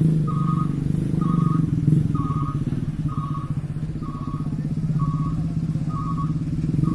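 Heavy diesel engine running with a steady low rumble, and a reversing alarm beeping about once a second.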